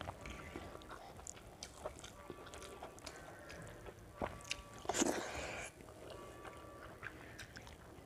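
Eating by hand: fingers working rice on a steel plate, with chewing and mouth sounds. Scattered small clicks throughout, and a louder noisy rush lasting under a second about five seconds in.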